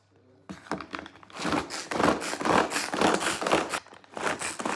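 Hand-operated mini food chopper worked in quick strokes, its spinning blades churning and crunching through partly frozen homemade ice-cream mixture in the plastic bowl. It sounds as a long rattling run from about half a second in to near four seconds, then a shorter run near the end.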